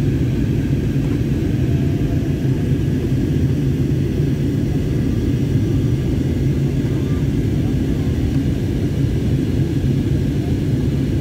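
Steady cabin noise of an Airbus A320-family jet in flight, the engines and airflow making a constant low rumble with no change in level.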